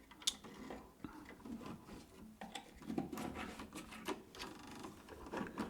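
Faint scattered clicks and rubbing of small objects being handled, with one sharper click just after the start.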